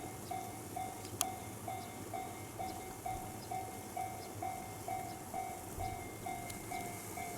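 Japanese railway level-crossing alarm ringing its repeated electronic ding, a little over two strikes a second and steady throughout, with one sharp click about a second in.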